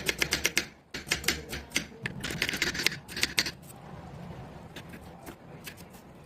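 Rapid run of sharp kitchen-utensil taps, several a second, for about three and a half seconds, then only a few scattered ticks.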